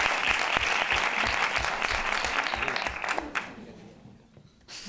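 Audience applauding, dying away about three seconds in, followed by a single click near the end.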